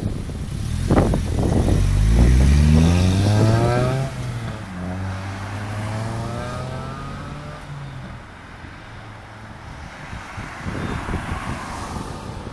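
Honda Civic Type R's four-cylinder engine through an unsilenced exhaust, accelerating hard away: a loud, rising note through first gear, a drop at the gear change about four seconds in, then a second rising run that fades into the distance.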